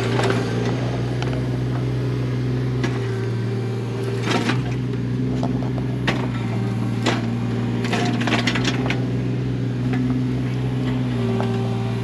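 Mini excavator's diesel engine running steadily under load while it digs a trench, with a whine that rises and falls, and several sharp cracks and knocks as the bucket breaks into the ground.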